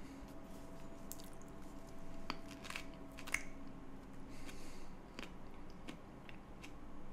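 A person peeling and eating a banana: scattered soft clicks and crackles of the peel and of biting and chewing, over a faint steady hum.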